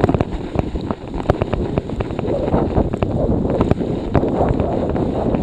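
Wind buffeting the microphone of a handlebar-mounted action camera while cycling through a snowstorm: a loud, constant rushing, broken by frequent sharp clicks and knocks.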